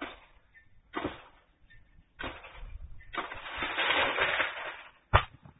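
Blade chopping in the crown of a palmyra palm: three sharp strikes about a second apart, then a rustle lasting about two seconds and one sharp knock near the end.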